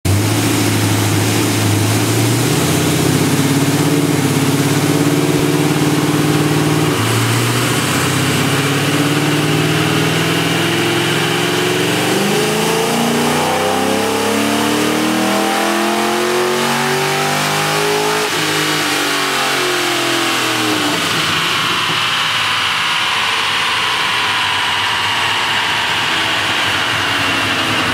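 Cammed LS2 V8 of a 2006 Pontiac GTO with an automatic transmission and Magnaflow exhaust making a full-throttle chassis-dyno pull. The engine pitch steps up through gear changes, climbs steadily to peak revs, then drops away after the throttle is closed, with a whine falling along with it near the end.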